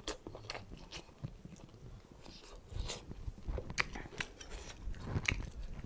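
A person chewing and biting cooked meat close to a clip-on microphone: irregular mouth smacks and clicks.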